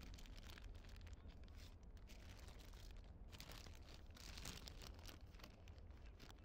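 Near silence: faint irregular crackling over a steady low rumble, with no speech.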